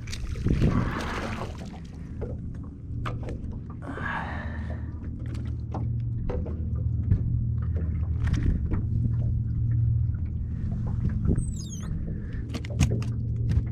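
Fishing from a boat while a hooked crappie is played in: a steady low hum runs under scattered clicks and knocks, with two brief splashy bursts, one just after the start and one about four seconds in, and a run of quick clicks near the end.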